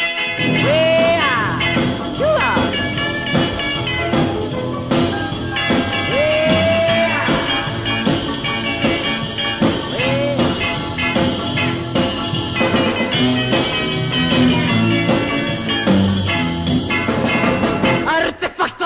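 Early-1960s rock and roll band recording in an instrumental break, with no singing. A lead instrument plays notes that slide up into pitch and hold, over a steady rhythm section.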